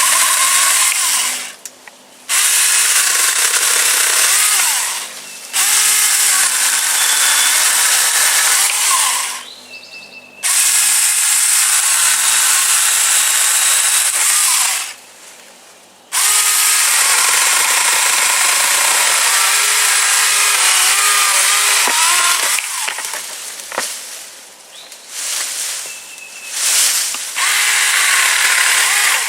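Saker 20V cordless mini electric chainsaw running in repeated bursts of several seconds, with short pauses between them and shorter bursts near the end, as it cuts through tree branches.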